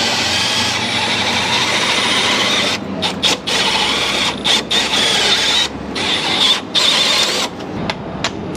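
Milwaukee Fuel cordless drill driving a bit into a steel rivet that holds a car door's window regulator, running with a high whine as the bit cuts the metal. The trigger is let off and squeezed again several times in quick succession around the middle, and the drilling stops a little before the end.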